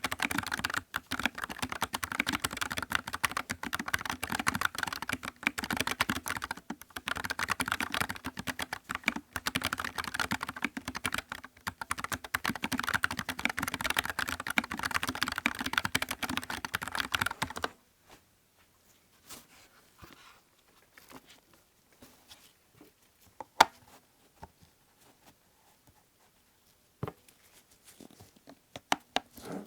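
Fast, continuous typing on a Nuphy Air75 low-profile mechanical keyboard with Gateron low-profile brown switches, with almost no hollow case resonance or spring ping. The typing stops abruptly a little over halfway through, leaving only a few faint, scattered clicks.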